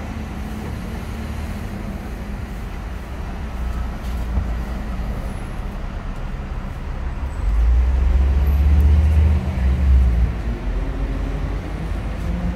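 City street traffic: a steady low rumble of engines, swelling as a vehicle passes about eight to ten seconds in.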